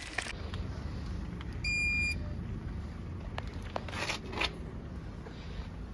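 Elevator call button giving a single short electronic beep about two seconds in, over a steady low outdoor rumble, with a brief rustle about four seconds in.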